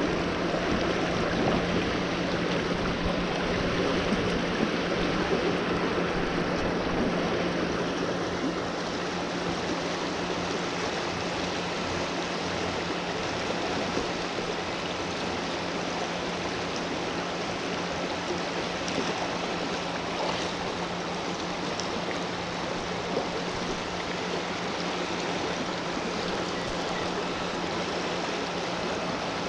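Rushing creek water flowing steadily, an even rush of stream noise.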